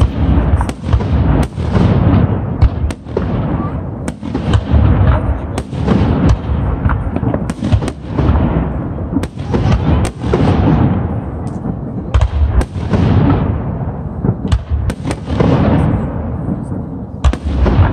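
Aerial fireworks shells bursting overhead in quick succession: a dense run of sharp booms, each followed by a rumbling echo, overlapping with no break.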